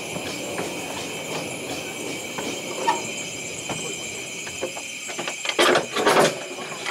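Narrow-gauge train running, heard from an open carriage: wheels clicking over rail joints at a steady pace, with a louder clatter a little over five seconds in.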